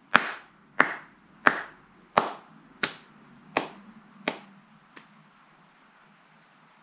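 Hand claps on a steady beat, eight claps about 0.7 seconds apart, each softer than the last: a decrescendo fading out about five seconds in.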